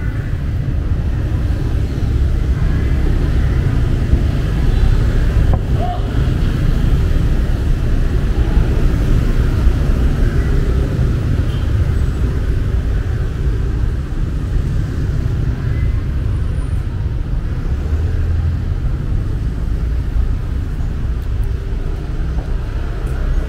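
Steady street traffic: vehicles running and passing in a continuous low rumble, with no single event standing out.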